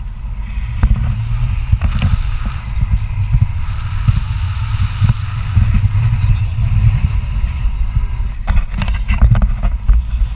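Wind buffeting the microphone: a loud, uneven low rumble that rises and falls in gusts. A few sharp knocks come near the end.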